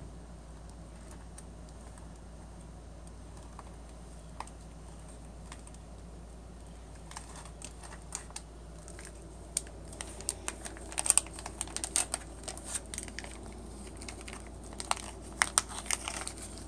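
Crinkling and sharp clicks of a plastic cat-treat package being handled, sparse at first and getting busy in the second half, over a low steady hum.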